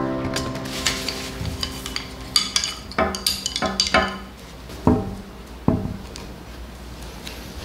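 Dishes and cutlery clinking and knocking on a table in a string of separate sharp clinks. Background music fades out over the first two seconds or so.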